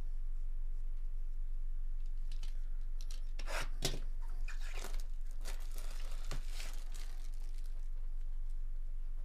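Packaging on a sealed trading-card box being torn and crinkled as the box is opened. The sound comes as a run of tearing, crinkling bursts from about two seconds in to about seven seconds in, loudest around four seconds, over a steady low electrical hum.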